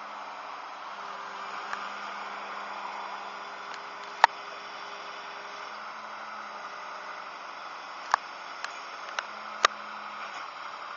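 Diesel engine of a Volvo EC210CL excavator-based pile driving rig running steadily, heard as a low hum under a steady hiss, with a few sharp irregular clicks in the second half.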